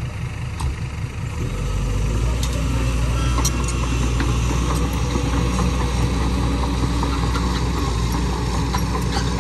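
Heavy diesel engines of a Kobelco crawler excavator and a six-wheel dump truck running as the excavator works to free the truck stuck on a slope. The engines rise in level about a second and a half in, under load, with a few metallic clanks.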